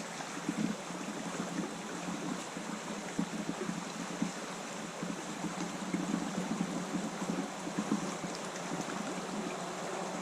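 Flowing water of a trout stream, a steady rushing and burbling.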